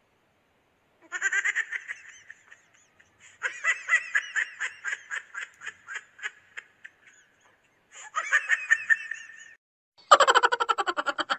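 Edited-in comedy sound effects: four bursts of high-pitched, cartoon-like cackling, each a quick run of pulses, with dead silence between them.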